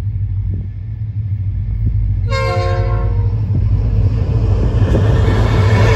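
Two EL-class diesel locomotives approaching at the head of a freight train, their rumble growing steadily louder. One short horn blast of several tones sounds a bit over two seconds in, as the train nears the level crossing.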